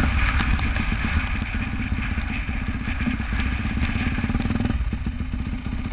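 Yamaha YZ450F dirt bike's 450 cc single-cylinder four-stroke engine running at low revs, with a steady low firing beat. The higher part of the engine sound drops away about four and a half seconds in, as though the throttle is eased off.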